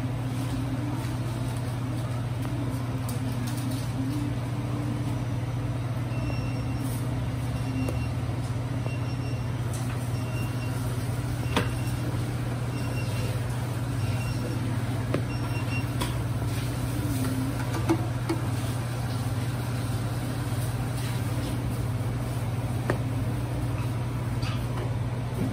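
Steady low mechanical hum of kitchen equipment at a flat-top griddle station, with a few light clicks of a metal spatula against the steel griddle. Faint, evenly spaced high beeps sound for about ten seconds in the middle.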